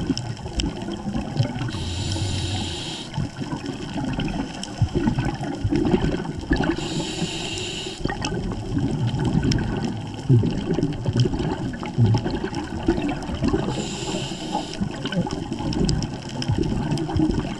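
Scuba diver breathing through a regulator underwater: three short hisses of drawn breath, about five to seven seconds apart, over a continuous low rumble and burble of bubbles and water moving past the camera housing.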